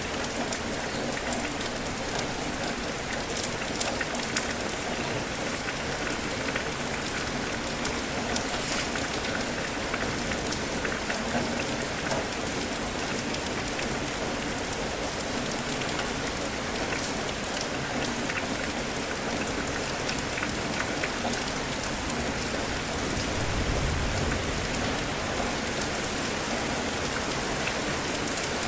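Steady rain falling, a dense hiss of drops with fine scattered patter, swelling briefly with a low rumble near the end.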